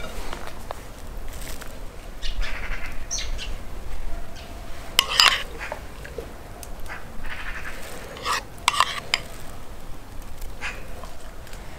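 A spoon scraping and clinking in a bowl as thick white sauce is scooped out and dabbed over shawarma filling on lavash. The sharpest scrapes come about five seconds in and again around eight to nine seconds.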